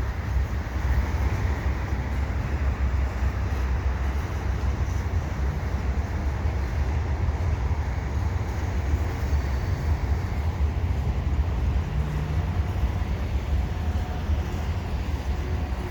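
A train rumbling steadily: a continuous low drone with an even wash of rail noise over it, with no horn or bell.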